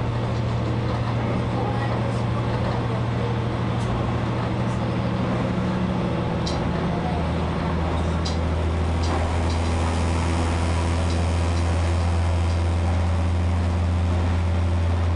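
Diesel railcar running at speed, heard from inside the cab: a steady low engine drone with wheel and rail noise and a few light clicks from the track. The engine tone steps down in pitch about halfway through.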